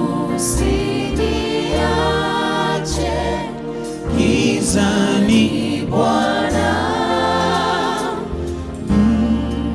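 Gospel worship music: a band playing while a group of voices sings in harmony.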